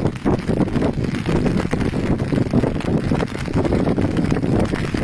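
Wind buffeting the microphone: a loud, gusty rumble that rises and falls unevenly.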